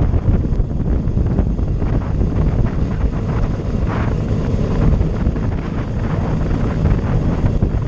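Wind buffeting the microphone of a camera on a moving road bicycle: a steady, heavy low rumble, with a brief brighter rush about four seconds in.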